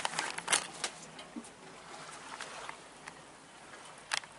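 Faint steady hiss of wind and water around a yacht at anchor, broken by a few sharp clicks, the loudest about four seconds in.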